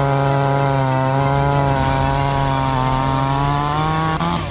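Shakti SPC22G 62cc two-stroke chainsaw running at full throttle with its chain cutting through a log. Near the end the engine note falls sharply and fades.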